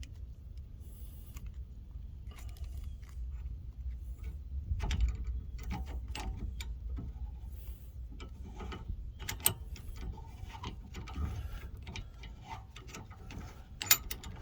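Irregular metallic clicks and clanks of hand tools working a rear brake caliper while its piston is pushed back into the bore for new pads, the sharpest knocks about halfway through and near the end.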